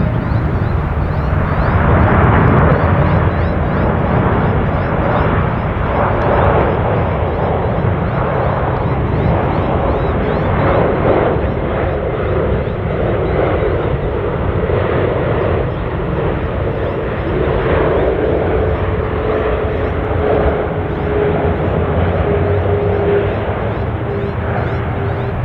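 A landing Boeing 747-8F freighter's four GEnx-2B jet engines: a loud, steady rumble with a whining tone that settles and slowly falls in pitch over the second half.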